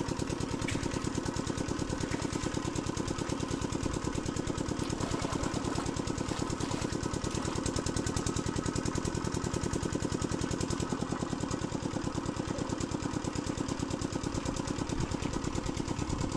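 A small engine running steadily at constant speed, with a rapid, even chugging beat.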